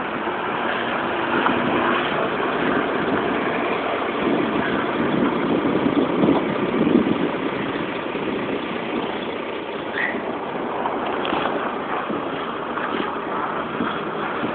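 Chrysler Voyager's 3.3-litre V6 engine running hard as the minivan slides around on snow, with a brief rising squeal about ten seconds in.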